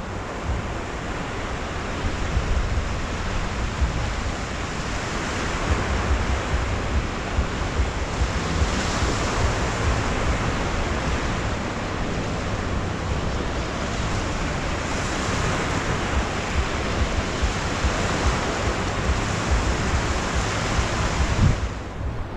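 Sea surf washing up the beach in a continuous hiss that swells and eases, with wind buffeting the microphone in low gusts.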